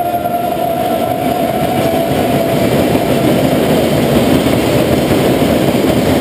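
A group of people clapping and cheering, a dense steady clatter of hands, with one long held voice note at the start that fades out about two seconds in.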